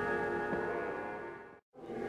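Film soundtrack music of sustained chords fading out to a moment of silence about one and a half seconds in, after which new music begins to swell near the end.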